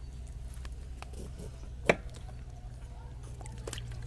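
Kitchen handling noises from bottle gourd pieces and a metal pot of water: scattered light clicks and one sharp knock just under two seconds in, over a steady low hum.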